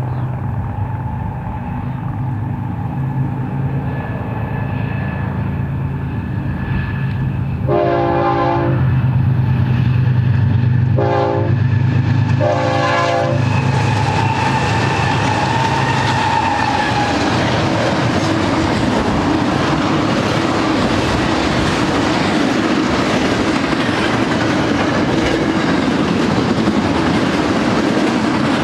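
BNSF double-stack intermodal train led by GE ES44C4 diesel locomotives approaching and passing: the locomotives' low engine rumble grows, the horn sounds three blasts about eight seconds in, the middle one short, then the engines pass and the loaded stack cars roll by with steady wheel-on-rail noise.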